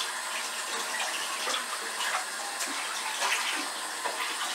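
Kitchen tap running water steadily into the sink.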